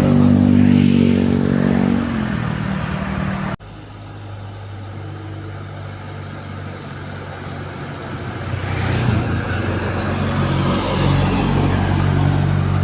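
Heavy diesel bus engines pulling up a hill as they pass: one engine sound falls in pitch and cuts off abruptly about three and a half seconds in, then another bus's engine grows louder and passes with a rush of air and tyre noise about nine seconds in, and a further engine builds near the end.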